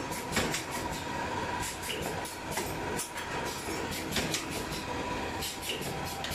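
Wire-processing machines running on a factory floor: a steady mechanical din full of rapid, irregular metallic clicks and clanks, with a faint steady whine underneath.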